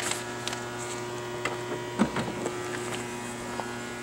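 A steady hum, with a few light clicks and a knock about two seconds in, as the rear tailgate of a 2007 Acura MDX is opened.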